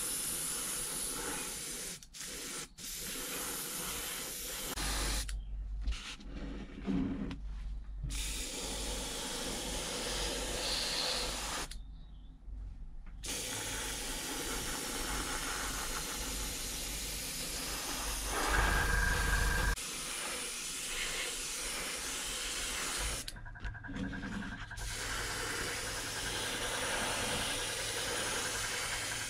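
Airbrush hissing steadily as it sprays paint, broken by several brief pauses.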